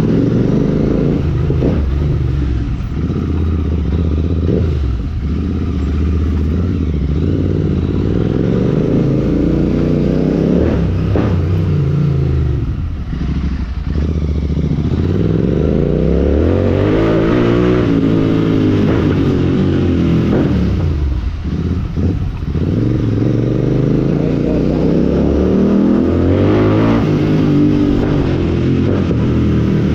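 Royal Enfield Continental GT 650's parallel-twin engine running through an aftermarket Red Rooster Stellar exhaust while ridden. The engine note climbs and drops off again several times with throttle and gear changes, with crackles and pops from the exhaust when the throttle closes.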